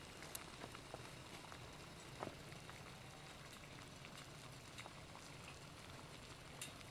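Water at a strong rolling boil in a stainless steel camp cup on a small wood-burning stove: a faint steady bubbling hiss with scattered small pops.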